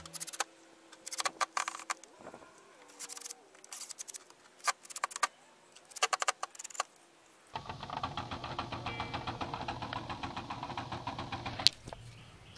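Cordless drill driving screws into wooden trim in a series of short bursts. From about halfway there is a longer steady run with rapid clicking, which stops with a sharp click near the end.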